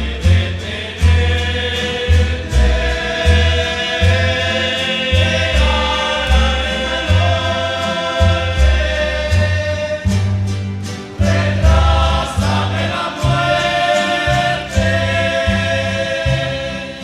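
A rondalla performing a ballad: several male voices singing in close harmony over strummed acoustic guitars and a plucked bass line.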